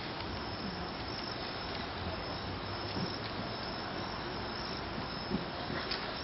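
Crickets chirping steadily over a quiet background hiss, with a few faint clicks.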